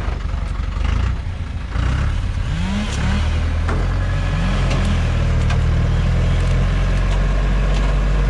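Loaded logging truck's engine revving as the truck tries to pull out of deep mud with its rear wheel dug in. A few short revs rise in pitch in the first half, then the engine holds a steady, heavy note under load.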